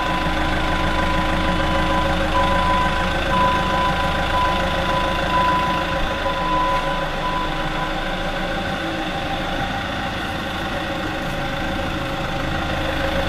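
An engine idling steadily on the machine used to lift the part. A high beeping tone, typical of a back-up alarm, sounds over it and stops about seven seconds in.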